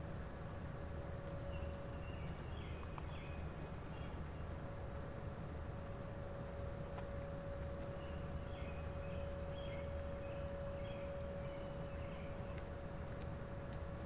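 A distant Whelen outdoor warning siren sounding one steady tone, faint under a steady insect chorus. A few short chirps come about a second in and again about eight seconds in.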